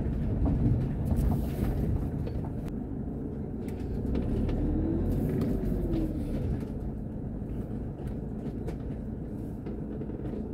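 2010 Bessacarr E540 motorhome driving slowly over a gravel farm track and onto grass, heard from inside the cab: a steady low engine and road rumble with scattered small clicks and rattles. A brief tone rises and falls about halfway through.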